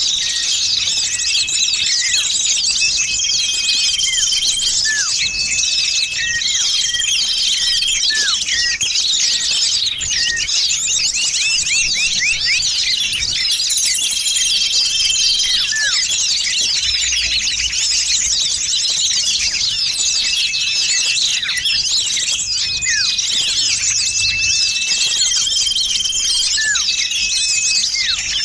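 A dense, busy chorus of many small songbirds twittering and chattering, with short level whistled notes recurring every few seconds and quick falling chirps: a bird-luring call recording of noisy small birds.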